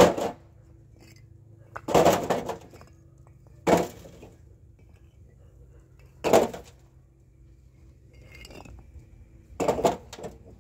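Fired clay bricks clinking and clattering against each other as they are picked from a pile and stacked into a wheelbarrow, in about five short bursts a couple of seconds apart.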